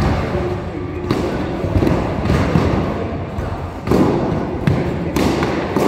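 Padded sparring swords striking round shields and padded armour: a string of dull thuds and knocks, a few of them louder, echoing in a large stone hall, with voices talking in the background.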